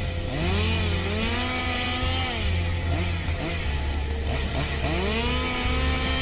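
Background music: a sustained low bass drone that drops in pitch midway, under two swells of gliding tones that rise, hold and fall.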